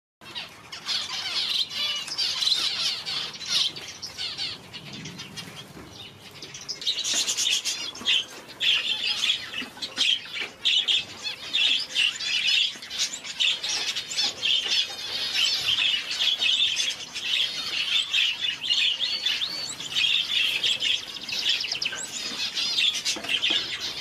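Parrot finches calling: a dense, near-continuous stream of high, thin chirps and twittering trills, easing off briefly about four to seven seconds in.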